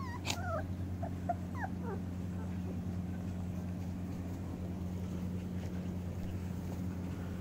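Puppies whimpering and yipping: several short, high cries in the first two seconds, with a sharp click just after the start, over a steady low hum.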